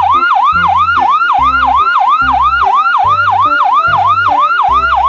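Ambulance-style electronic yelp siren, its pitch sweeping rapidly up and down about four times a second, over a steady bass beat.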